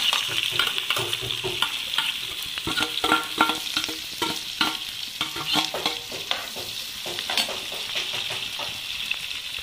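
Chopped onions sizzling steadily as they go into hot oil in a frying pan, while a metal spoon scrapes and clinks them off a steel plate into the pan.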